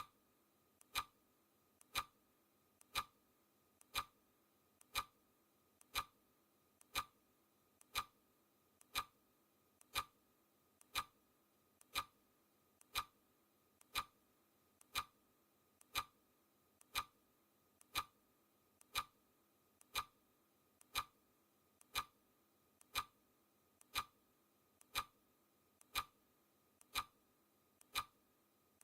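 Recorded clock ticking, one tick each second, each preceded by a fainter click, marking off the seconds of a countdown timer.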